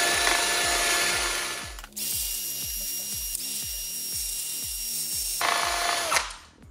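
Cordless drill spinning a wire brush against the face of an engine cylinder head, cleaning it. It runs in two long bursts with a brief break about two seconds in, and stops near the end.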